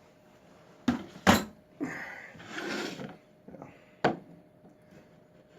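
Handling noise of small hard objects: three sharp clicks or knocks, two close together about a second in and one about four seconds in, with rustling between.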